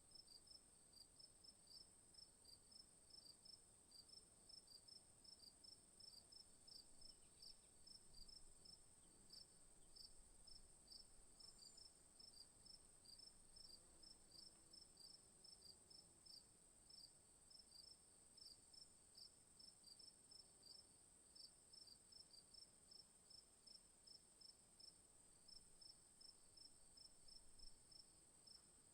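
Crickets chirping faintly: a steady high-pitched trill under a regular train of short chirps, about two or three a second.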